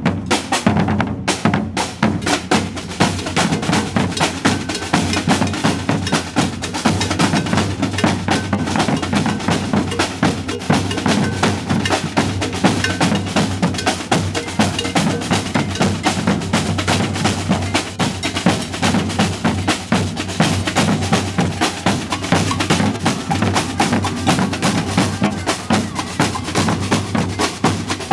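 A drum ensemble playing a fast, steady rhythm together, snare-type drums rattling over deep bass drums.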